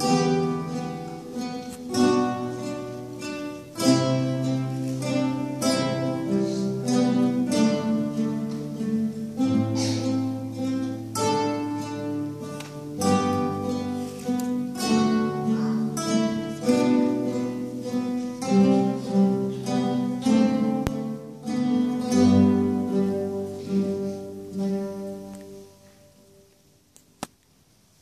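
An ensemble of acoustic guitars plays a piece together, plucked melody over chords. Near the end the last notes ring out and die away to near silence.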